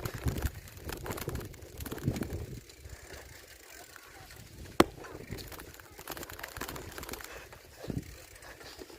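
Bicycle being ridden over rough offroad ground: the frame and chain rattle and click over a low rumble of tyres, with one sharp click about five seconds in.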